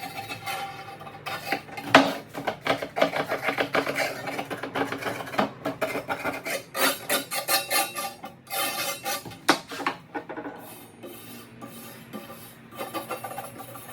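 Rapid, uneven scraping and rubbing strokes on metal as rust is scrubbed off an antique sword blade, with one sharp knock about two seconds in.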